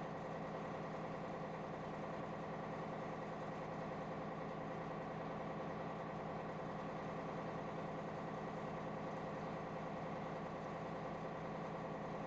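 Large cargo ship's diesel engine running steadily, an even mechanical hum that holds the same pitch throughout.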